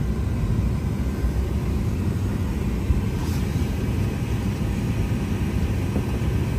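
Steady low rumble of an airliner's cabin noise.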